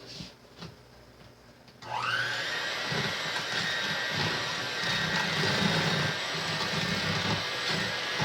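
Electric kitchen mixer switched on about two seconds in. Its motor spins up with a rising whine and then runs steadily as it beats the wet muffin ingredients: eggs, pumpkin, oil and sugar.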